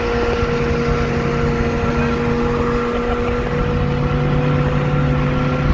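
Cabin sound of a 2016 Mustang GT cruising at highway speed: a steady drone from its 5.0 V8 under road and wind noise, holding an even pitch.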